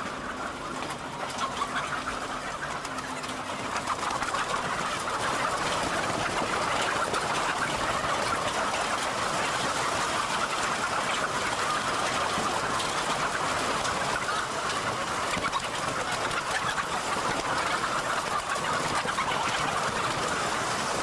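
Many caged laying hens clucking at once, a dense steady chorus that grows louder about four seconds in.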